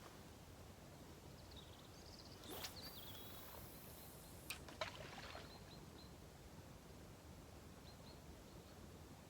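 Quiet outdoor ambience with a few faint bird chirps. A short whoosh comes about two and a half seconds in, and two sharp clicks follow near the five-second mark.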